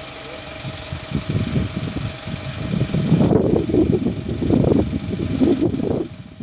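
A truck's diesel engine running, growing louder about halfway through and cutting off abruptly near the end.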